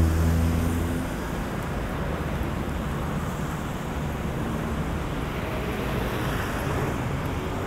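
Street traffic: a nearby vehicle's engine is loud at the start and fades out about a second in, leaving a steady wash of city traffic noise.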